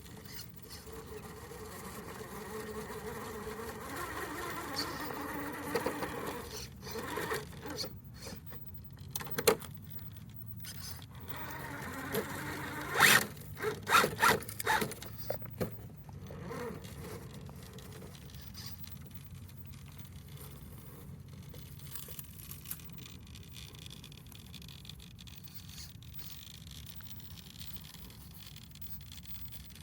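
RC crawler truck driving: its electric motor and geared drivetrain whine, the pitch wandering with the throttle. A cluster of sharp knocks and scrapes comes from about eight to fifteen seconds in.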